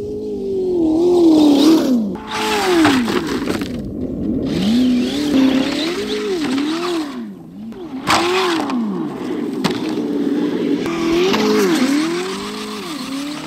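An ESS-One engine sound kit on a Traxxas Slash 4x4 RC truck plays a simulated engine through its speaker, the pitch rising and falling again and again with the throttle. Under it is a hiss from the tyres spraying snow.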